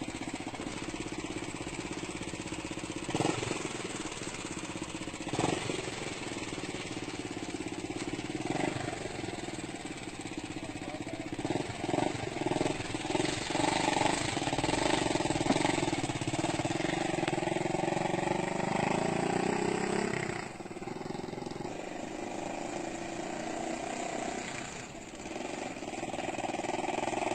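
A small engine running, its pitch climbing from about halfway through and holding high, then dropping off suddenly about two-thirds of the way in before rising again near the end.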